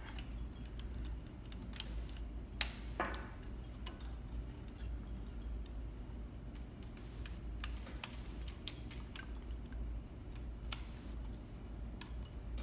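Small metal clicks and taps at irregular intervals, with a few sharper ones, as tweezers and a wire threader knock against the looper parts of a Juki MO-6700DA serger during threading.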